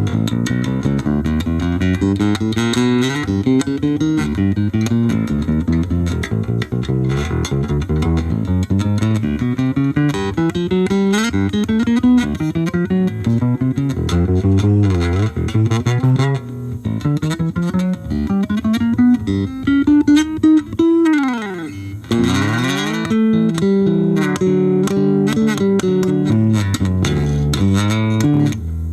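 Charvel four-string Precision-style electric bass played through a small VOX Soundbox Mini amp, plucking a continuous run of single notes. About three-quarters of the way in there is a long slide down the neck that turns back up.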